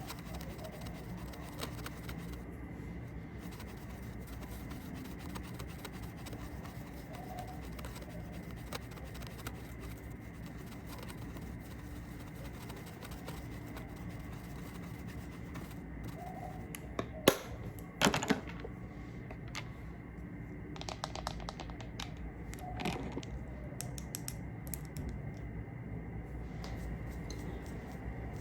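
Makeup products and their cases tapped and clicked close to the microphone: light scattered taps over a steady background hiss, with a couple of sharp, louder clicks about seventeen seconds in and small clusters of taps a few seconds later.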